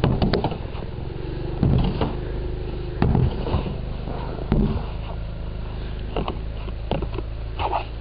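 Snow being cleared by hand: repeated scraping and knocking strokes of a snow-clearing tool, roughly one every second and a half, over a steady low rumble.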